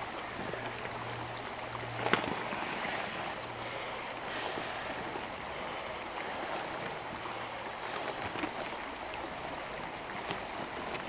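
Steady rush of flowing water, with a sharp click about two seconds in and a few fainter knocks.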